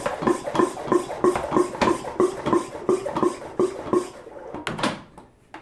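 Hand pump of a pump-up pressure sprayer worked in quick strokes, about three a second, each stroke with a short squeak, pressurising the tank of mixed fungicide spray. The pumping stops near the end with a couple of clicks.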